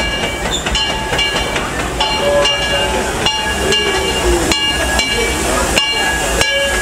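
Steam locomotive 'Ernest S. Marsh' of the Disneyland Railroad pulling into the station with its bell ringing, a strike about every two-thirds of a second, over a low rumble from the engine and cars.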